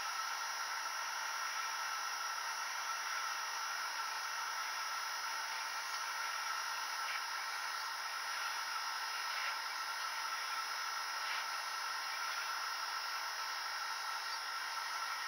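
Hot-air gun blowing steadily onto a laptop mainboard chip during reflow: an even whir and hiss from its fan and airflow, with a few faint ticks partway through.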